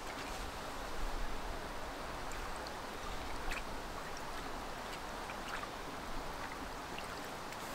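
A shallow stream running over rocks, a steady babble of water with a few faint drips and small splashes.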